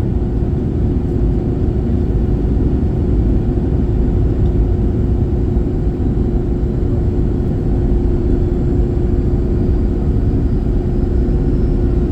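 Cabin noise inside a Swiss Airbus A321-111 in flight: the steady rumble of its engines and the airflow over the fuselage, with a steady low hum running through it.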